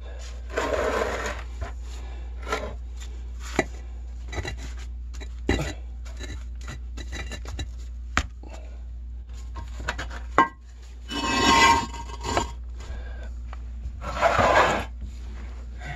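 Concrete blocks being handled and set on a crawlspace pier: a hollow concrete block and solid concrete pads scraping across each other and the dirt in three longer scrapes, about a second in, around eleven seconds and near the end, with scattered knocks of block on block between them.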